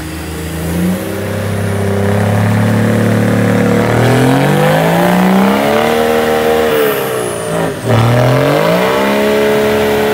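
Off-road race buggy's engine revving hard under load as the buggy climbs a muddy bank. The pitch climbs over several seconds and is held high, drops sharply for a moment near the end, then revs back up.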